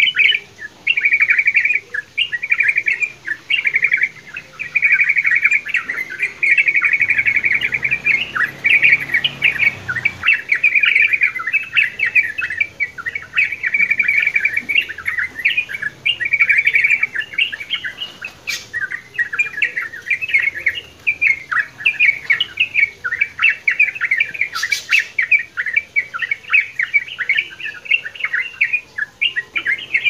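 Yellow-vented bulbuls singing: quick chattering notes strung into phrases, with short gaps at first and then almost unbroken. Two brief sharp clicks come in the second half.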